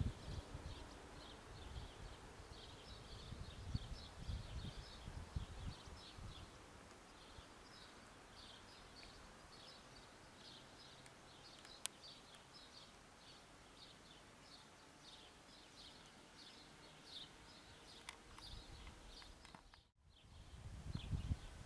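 Faint outdoor ambience of repeated high chirps, several a second. A low rumble comes in the first few seconds and again after a short break near the end, and there is a single sharp click about twelve seconds in.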